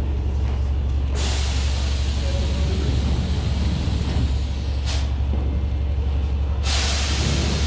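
Steady low rumble of a vehicle, with two bursts of hissing noise that switch on and off suddenly: one about a second in lasting nearly four seconds, and another starting near the end.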